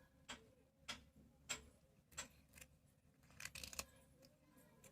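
Faint, sharp clicks about every half second, with a quick cluster a little past the middle: a cat crunching a biscuit.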